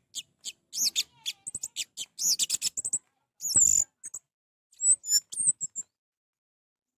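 Orange-headed thrush singing a quick, varied run of short high chirps and whistles with brief gaps, including one louder, harsher note past the middle. It stops about six seconds in.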